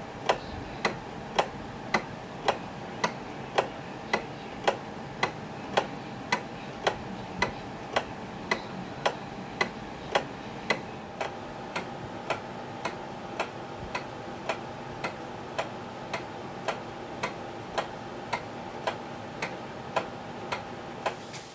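1934 Ingraham Bedford eight-day, time-only pendulum wall clock ticking steadily, a little under two ticks a second, with a faint steady hum beneath.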